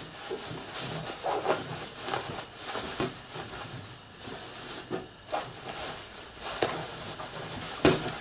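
Rustling of a cotton fabric body and white fibre toy stuffing, handled and pressed in by hands, with a series of short scuffs and soft knocks. The loudest comes near the end.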